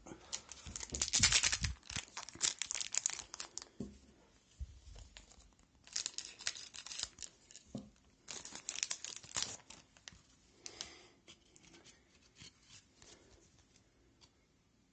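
Hockey card pack wrapper crinkling and tearing in three bursts: a long one at the start, then two short ones around the middle as a fresh pack is handled and torn open. Fainter scattered clicks follow.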